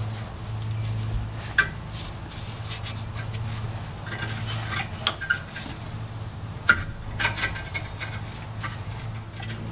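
Steel exhaust parts and hand tools clinking and tapping against each other: a handful of sharp metallic clinks, the loudest about a second and a half in and near seven seconds in, over a steady low hum.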